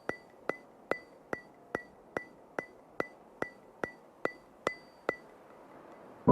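A steady run of sharp ticks with a short bright ring, about two and a half a second, like a metronome. The ticks stop about five seconds in.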